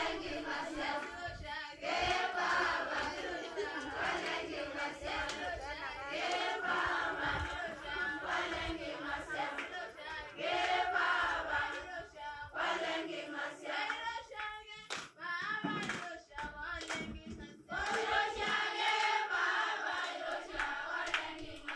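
A group of voices singing together, with hand clapping.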